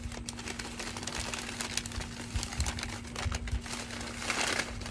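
A cardboard shipping box being handled and turned over: irregular taps, knocks and scrapes with paper crinkling, and a longer rustle near the end.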